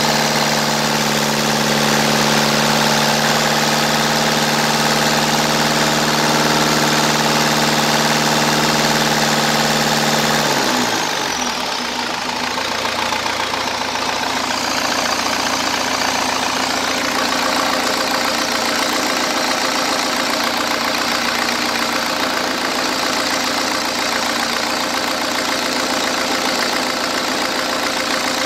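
Cummins 4BT four-cylinder turbo diesel running at raised speed; about ten seconds in the revs drop quickly and it settles into a steady idle.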